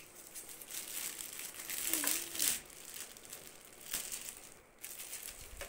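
Clear plastic wrapping crinkling and rustling in uneven bursts as it is handled and pulled off a new appliance, with a sharp click about four seconds in.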